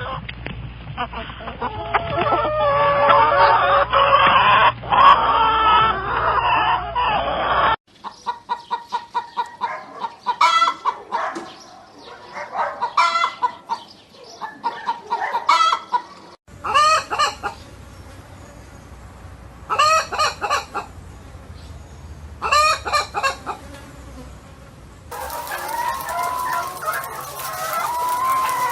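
Domestic chickens clucking and calling, with a rooster crowing among them. The sound comes in several joined clips: dense overlapping clucks, then a quick run of short calls, then loud drawn-out calls about every three seconds.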